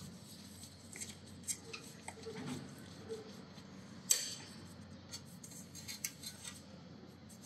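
Light metallic clicks and clinks of hand tools and parts being handled, with one sharper click about four seconds in.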